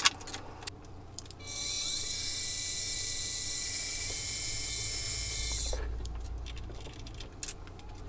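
Milling machine spindle drilling into an aluminum block: a steady high hiss with a faint whine for about four seconds, then it stops with a short falling tone. A sharp click at the start and a few light clicks before and after.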